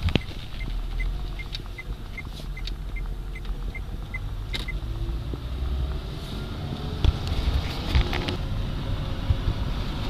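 Car engine and road rumble heard from inside the cabin while driving slowly. A light ticking about three times a second stops about halfway through. The engine note rises in the second half, with a couple of sharp thumps near the end.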